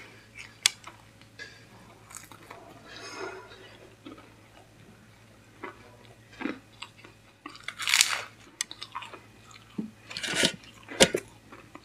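Close-miked chewing and crunching of a fried samosa's crisp pastry, with louder crackling crunches about 8 seconds in and again twice near the end.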